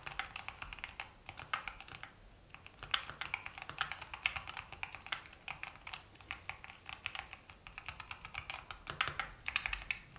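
Typing on a Keychron Q1 HE keyboard's Hall effect switches: a quick, steady run of key clicks, with a short pause about two seconds in.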